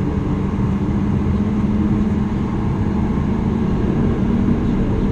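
Steady cabin noise inside a Boeing 737 MAX 8: an even rush of engines and airflow with a constant low hum.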